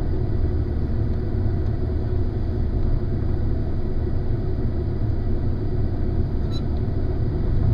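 Car engine idling at a standstill: a steady low rumble.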